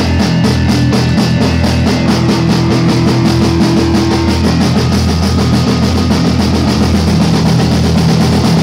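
Live rock band playing loudly: drum kit and cymbals keeping a steady beat under bass guitar and electric guitar.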